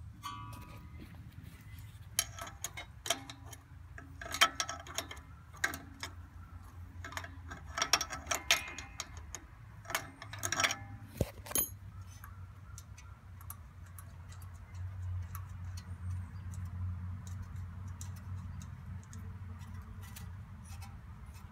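Bursts of sharp clicking and metal clinks from hand tools working on a riding mower's metal parts, densest over the first half, with a low steady hum underneath that grows a little stronger in the second half.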